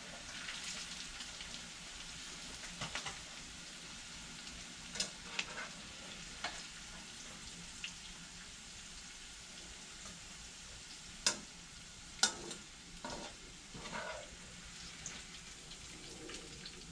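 Chopped bitter melon (karila) frying in hot oil in a pan, a steady sizzle. It is done and being scooped out, so there are several sharp metal clinks of the strainer spoon against the pan and steel bowl, the loudest about 11 and 12 seconds in.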